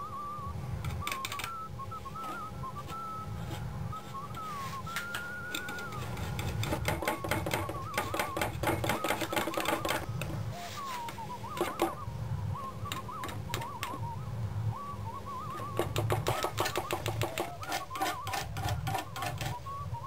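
Palette knife tapping and dabbing thick acrylic paint onto a wooden panel: quick clicks in two spells of a few seconds each, in the middle and near the end. Under them, a wandering whistled tune and a low steady hum.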